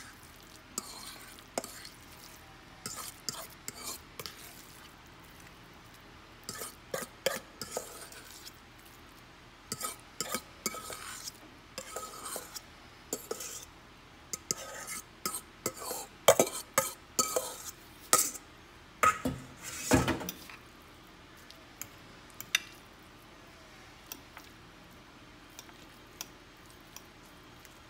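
Metal fork scraping and clinking against a stainless steel mixing bowl as crumbly cornbread dressing is scooped out into a glass baking dish, in irregular bursts of scrapes and taps. The clinks thin out after about twenty seconds as the dressing is pressed and spread in the dish.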